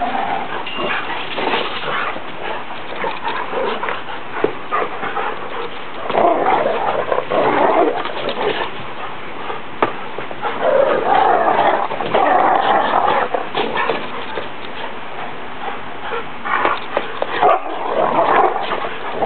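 Two dogs playing, whimpering and barking, with louder stretches about six, eleven and seventeen seconds in.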